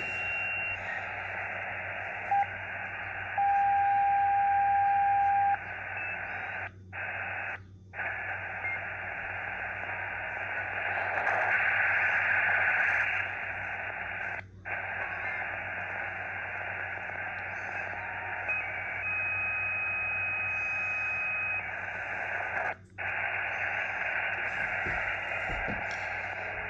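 Xiegu X6100 HF transceiver's speaker giving steady receiver hiss while being tuned across the 80 m band in lower sideband. Single steady whistle tones (the radio's internal birdies) pop in and out for a second or two at a time, and the audio cuts out briefly a few times, a skip the owner puts down to the IF moving.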